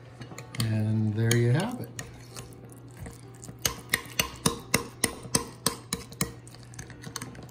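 Metal spoon stirring yogurt and cucumber raita in a glass bowl, clinking against the glass about three times a second through the second half. Near the start a short hummed voice sound rises in pitch at its end.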